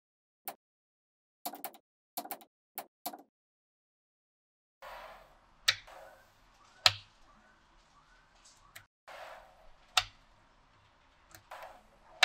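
Small magnetic balls clicking together as they are set in place by hand: a few light clicks in the first three seconds, then louder, sharper snaps a second or more apart over a faint rustle.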